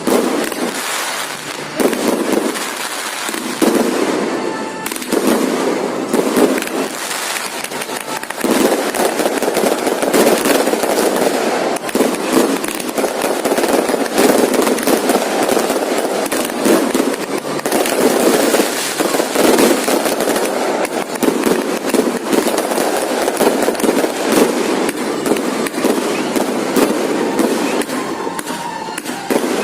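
Fireworks display: a dense, continuous barrage of overlapping bangs and crackles, with short lulls in the first few seconds.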